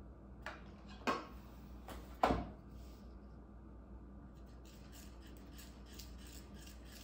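Bread dough being mixed in a bowl, flour being worked into the wet sourdough mix: three knocks against the bowl in the first couple of seconds, then a steady run of quick scraping and rubbing strokes.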